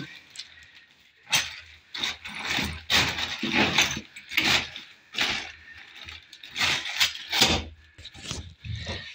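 Irregular rustling and knocking of handling, a string of short, sharp bursts about every half second to second with quieter gaps between.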